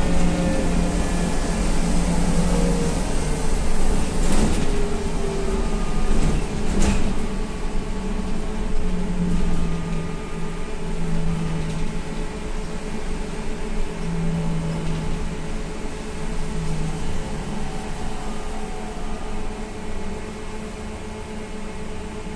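Cabin noise inside a SVARZ-MAZ-6275 trolleybus under way: deep road rumble and the hum and whine of the electric drive, the whine sliding down in pitch in the first few seconds as it slows. Two sharp knocks about four and seven seconds in, and the noise eases off gradually toward the end.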